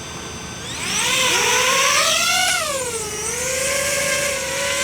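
DJI FPV drone's motors and propellers spinning up for takeoff. About a second in, the whine rises in pitch, then dips briefly and settles to a steady hovering whine.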